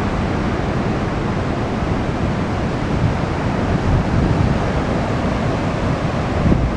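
Pacific Ocean surf: a steady wash of waves breaking and running in over the shore, with a low, uneven rumble of wind on the microphone.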